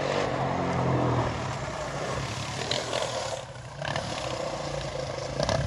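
Motorcycle engine running as it is ridden, dropping briefly about three and a half seconds in before picking up again.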